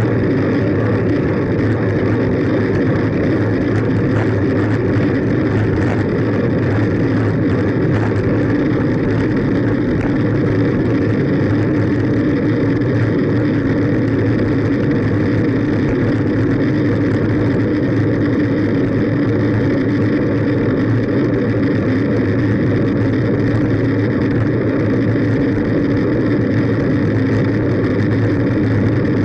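Steady wind rush and road noise from riding a bicycle on asphalt, heard as low rumbling buffeting on the microphone of a camera moving with the bike. It stays constant, with no distinct events.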